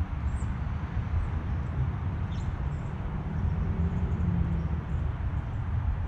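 Steady low outdoor rumble, with a few faint, short, high bird chirps about half a second and two seconds in.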